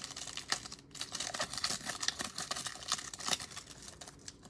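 Foil wrapper of a 2020 Panini Select football card pack crinkling and tearing in the hands as it is opened: a steady run of irregular crackles.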